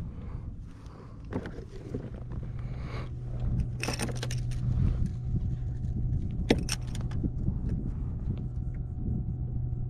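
Handling noises on a plastic sit-on-top kayak: a few sharp clattering knocks and rattles, about four seconds in and again about six and a half seconds in. Under them are a low rumble of wind and water and a steady low hum that starts about two seconds in.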